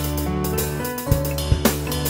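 Instrumental stretch of a song: a drum kit strikes over held bass and chord notes, with crashes about a second in and again about half a second later.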